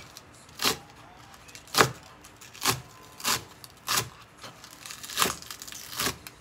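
Kitchen knife slicing spring onions on a cutting board: about seven separate cuts, one every second or so, each a short stroke of the blade through the stalks down onto the board.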